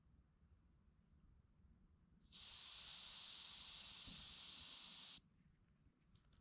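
Air hissing out of a mountain bike tyre's valve in one steady burst of about three seconds, starting and stopping abruptly: the tyre pressure is being lowered for more grip on slippery ground.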